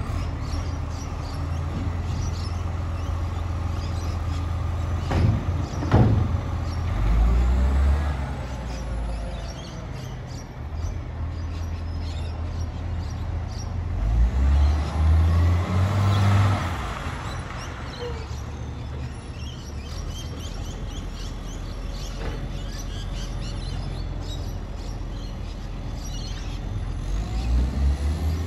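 Garbage truck's diesel engine running as it pulls away down the street, a steady low rumble that swells louder twice, about a fifth of the way in and again about halfway through. Birds chirp faintly.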